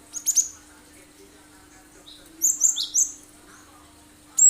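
Cinereous tit (gelatik batu) giving sharp, piercing calls in short bursts: a quick pair of notes just after the start, a run of sharp falling notes about two and a half seconds in, and another burst beginning at the very end.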